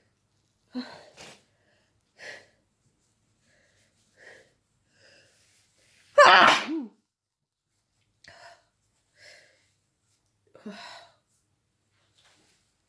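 A person sneezing during a sneezing fit while sick: one loud voiced sneeze about six seconds in. Short, quieter breathy sounds come before and after it.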